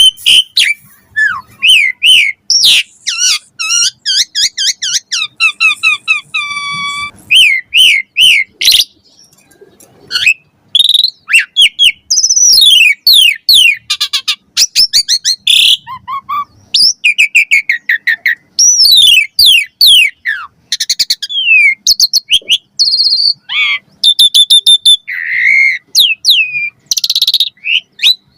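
Asian pied starling singing a fast, varied song of clear whistles, rising and falling glides, buzzy trills and sharp clicks in quick succession, with brief pauses between phrases.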